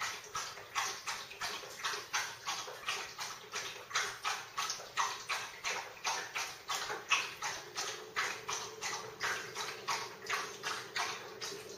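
Dog panting steadily off-camera, an even rhythm of about three breaths a second, with a faint steady hum underneath.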